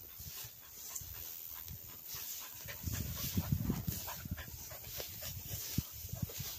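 Cocker spaniel panting close by, in quick irregular breaths that grow louder about three seconds in.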